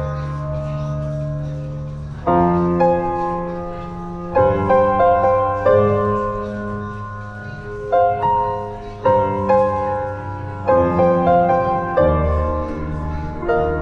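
Background music: a piano playing slow sustained chords with a melody over them.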